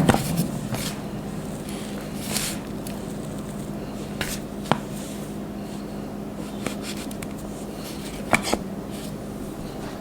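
Dry khadiya mitti (chalk clay) chunks being crumbled by hand, with separate sharp cracks and crunches at uneven intervals, including a quick double crack near the end, over a steady low hum.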